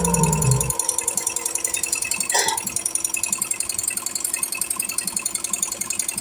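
Single-head computerized embroidery machine stitching, its needle mechanism making a rapid, even mechanical ticking of many strokes a second. A brief higher-pitched sound cuts in once, a little over two seconds in.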